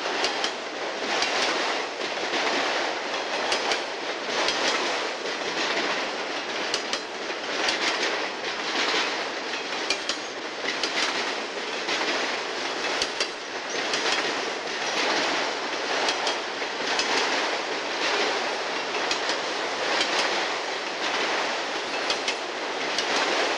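Freight train of autorack cars rolling past close by: a steady rush of steel wheels on rail, with regular clicks as the wheels cross the rail joints.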